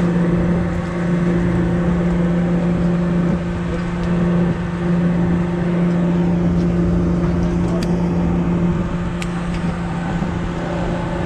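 Steady, even drone of a party boat's engine running, holding one low pitch without change.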